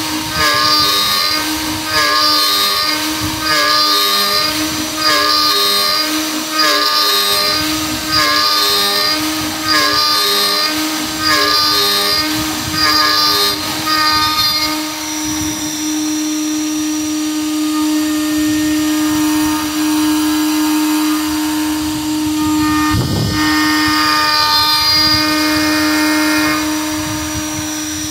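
CNC router spindle running steadily while an endmill adaptive-clears a 10 mm-deep slot in 6061 aluminium, giving a regular burst of cutting noise about every 1.3 s as the tool sweeps into the metal on each pass. About halfway through the cutting bursts stop and the spindle keeps running alone with a steady whine.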